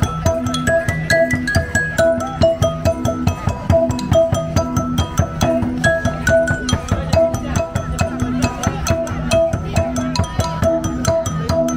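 Music played on a đàn đá, the Vietnamese stone lithophone: quick struck notes at a steady rhythm, with a melody moving in the higher notes over a repeating lower figure.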